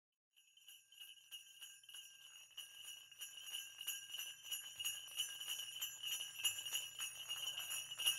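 Sleigh bells jingling in quick, rhythmic shakes. They start faint and grow steadily louder, as if the sleigh is drawing near.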